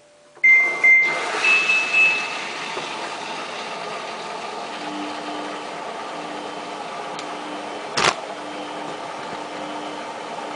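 Samsung WF8804RPA washing machine giving two short beeps, then water rushing steadily into it as it fills on the service cycle. A low hum joins about halfway through, and there is a single sharp knock near the end.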